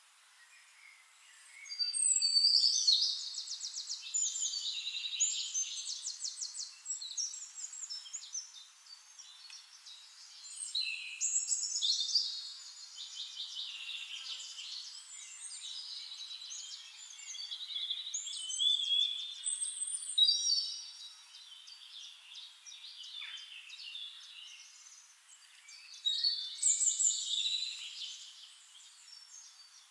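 Forest songbirds singing: about four loud bursts of rapid trilled and chirping phrases, with quieter calls between them.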